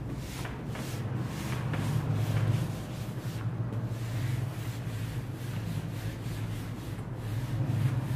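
Soft, irregular rubbing and scuffing noises over a steady low hum, a little louder about two seconds in and again near the end.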